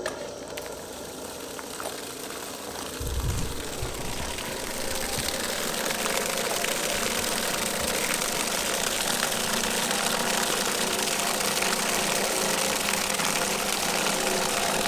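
Old sump pump's electric motor switching on suddenly and running steadily with a hum while it pumps water out of a bucket. A rushing noise builds over the first several seconds, then holds steady.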